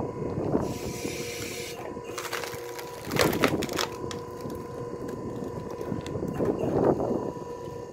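Electric-motor hydraulic log splitter humming steadily as its wedge is forced into a log; the wood cracks and crunches in several bursts, loudest about three seconds in, as it splits apart.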